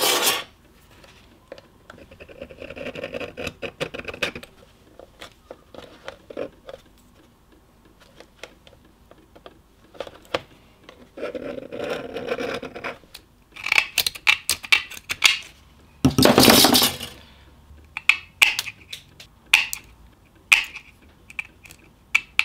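Thin steel sheet pieces being handled and marked on a rubber mat: stretches of pen-on-metal scratching and scraping broken by light metal clicks and clinks, with a louder scrape about two-thirds through.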